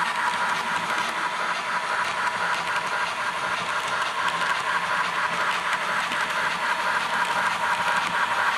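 Steady train running noise, with a fast rhythmic flutter and a steady whine running through it.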